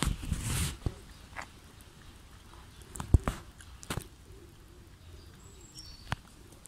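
A rustle in the first second and a few sharp clicks later, the loudest about three seconds in, with faint short bird chirps near the end.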